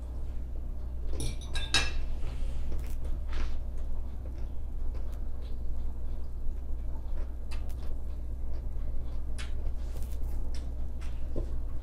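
Forks clinking and scraping on plates as people eat, in short scattered clicks with a denser run a little over a second in. A steady low hum runs underneath.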